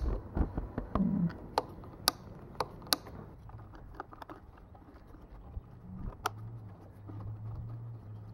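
Sharp clicks and taps of small plastic and metal parts as the air filter base, choke and filter screen of a Husqvarna 130BT backpack blower are handled, mostly in the first three seconds with one more click about six seconds in. A steady low hum comes in about six seconds in.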